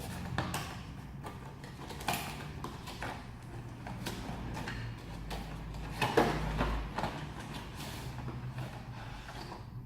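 Cardboard shaver box being opened by hand: scattered rustling, scraping and knocking of cardboard and packaging, loudest about six seconds in.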